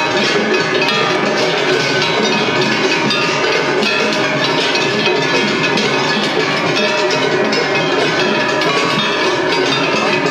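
Kumagaya festival hayashi with taiko drums and loudly clanging hand-held kane gongs, playing continuously. Several float ensembles play over one another in a tatakiai drumming contest.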